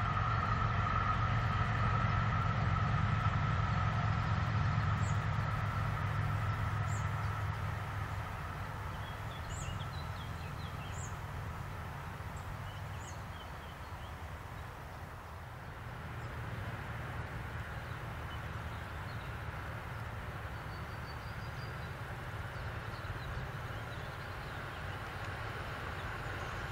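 Electric train fading into the distance: a low rumble and a steady high whine die down over the first eight seconds or so, with a few bird chirps in the lull. In the second half the rumble and whine build up again faintly as another electric train approaches.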